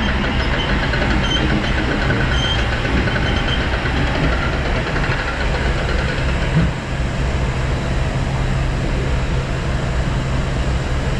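Steady low drone of idling truck and dump-pit machinery, with the rush of wheat pouring from a grain trailer's opened hopper gate onto the pit grate. There is a brief bump about halfway through.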